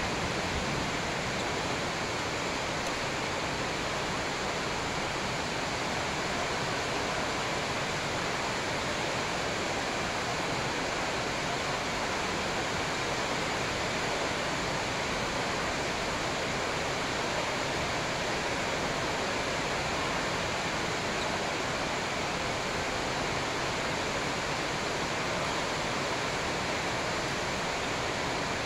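A steady, even rushing hiss that does not change, with no shuttle hits, footsteps or voices standing out above it.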